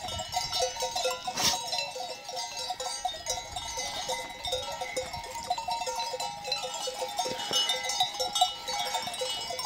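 Bells worn by a flock of sheep clanking, many at once, in an uneven, continuous jangle.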